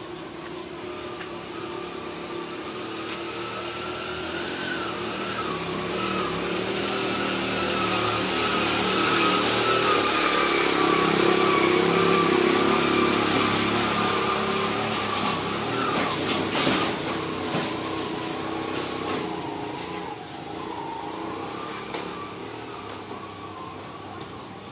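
A small engine hums steadily, slowly growing louder to a peak about halfway through and then fading again. A few sharp clicks come about two-thirds of the way in.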